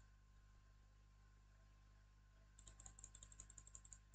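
Near silence, then about two and a half seconds in a quick run of soft computer clicks, around eight a second, lasting about a second and a half.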